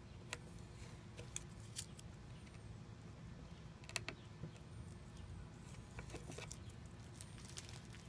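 Quiet outdoor background: a low steady rumble with scattered faint clicks and taps, and a few faint high chirps.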